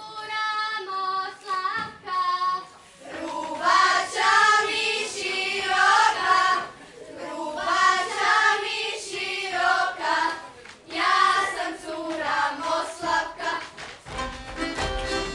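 A group of girls singing a traditional folk song together in unison voices. About fourteen seconds in, an accordion and plucked strings strike up the dance tune.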